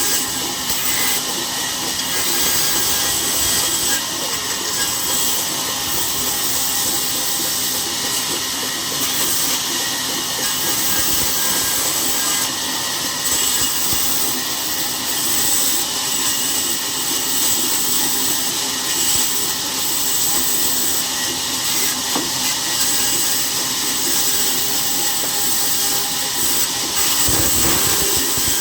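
Steady, loud hissing machine noise with a faint high whine running through it.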